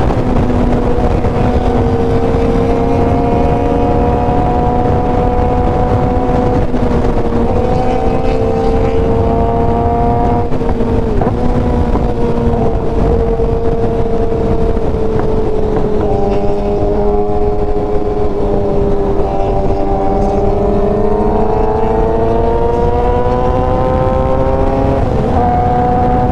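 Sport motorcycle engine running at highway cruising speed over a steady rush of wind noise. The engine note drifts gently down and up, dips briefly about 11 seconds in, and drops abruptly near the end.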